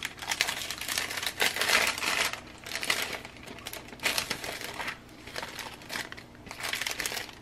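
Clear plastic cellophane bag crinkling in irregular bursts as hands open it and pull out the cards inside.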